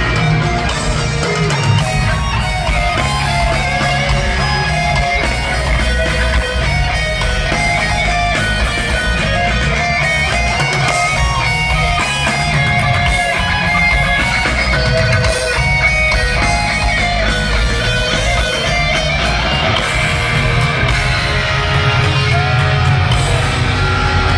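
Live heavy metal band playing in a stadium: electric guitar riffing over bass and drums, loud and even.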